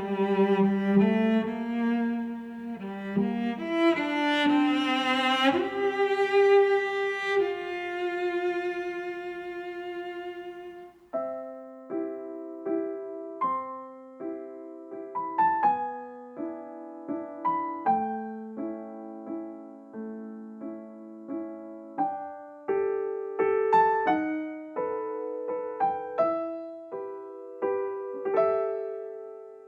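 Background instrumental music: bowed strings play sustained notes for roughly the first ten seconds, then a piano picks out a melody of separate notes.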